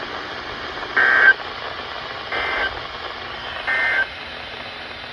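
Emergency Alert System end-of-message data bursts: three short, buzzy two-tone digital squawks about a second and a third apart, over steady radio hiss. They mark the end of the severe thunderstorm warning broadcast.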